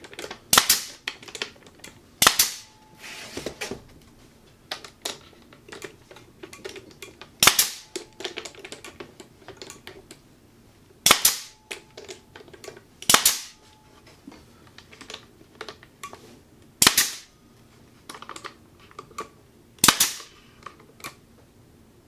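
Pneumatic brad nailer firing brads through a cedar roof panel into a bird house: about seven sharp shots a few seconds apart. Quieter clicks and knocks from handling the tool and wood come in between.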